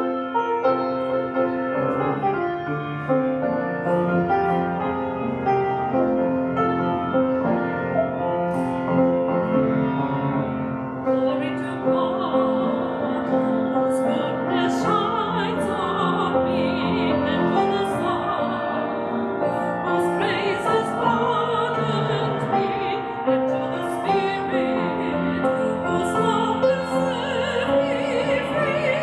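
Piano playing an introduction, then a woman's solo singing voice with vibrato joins over the piano about eleven seconds in.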